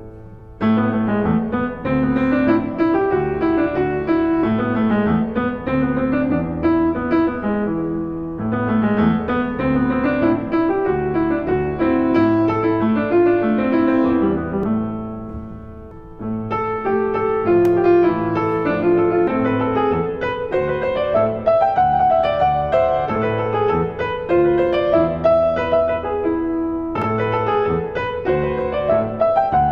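Background piano music, played in phrases with brief pauses between them about 8 and 16 seconds in.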